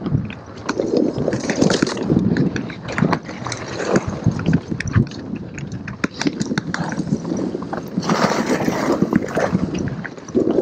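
Mountain bike riding fast down a dirt singletrack: tyres rolling over dirt and roots, with many sharp rattles and knocks from the bike, loudest about eight seconds in.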